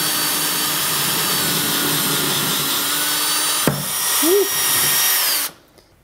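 DeWalt cordless drill running steadily as it drills into wall tile, with a sharp click partway through, then stopping suddenly near the end.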